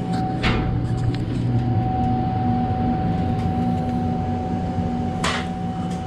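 Steady hum of running refrigeration machinery, several fixed tones at once, with a short rustle or knock about half a second in and another near the end.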